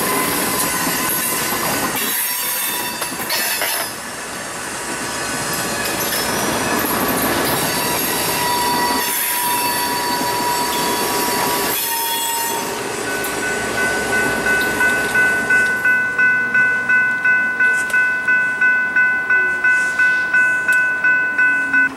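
Diesel locomotive and covered hopper cars rolling over a grade crossing, the wheels rumbling on the rails and squealing. Once the train has passed, about two-thirds of the way in, the crossing bell is left ringing on its own, evenly at about two to three strikes a second.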